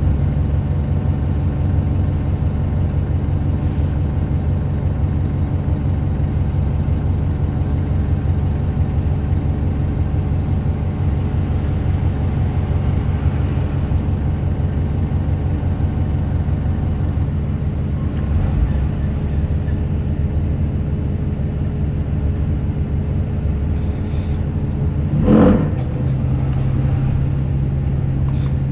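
VDL DB300 double-decker bus engine running steadily under way with a low, grumbling drone. A brief louder sound comes about 25 seconds in, and the low tone shifts just after it.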